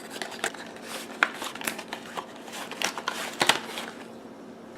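A small cardboard box being opened and its contents handled by hand: irregular clicks, scrapes and rustles of cardboard and packaging.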